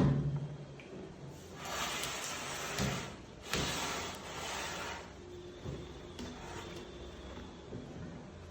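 Clothes rustling and brushing as they are pushed by hand into the drum of a front-loading washing machine, in two spells of a second or so each, after a sharp knock at the start.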